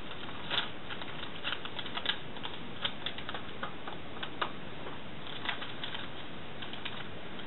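Scattered light clicks and taps at irregular intervals, one or two a second, over a steady background hiss. There is no steady running sound of a sewing machine.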